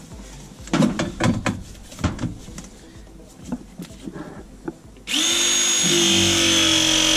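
Battery-powered ProPress press tool: a few knocks and clicks as the jaw is fitted onto the copper fitting, then about five seconds in the motor starts and runs with a steady whine, crimping the ProPress joint on the copper heat line.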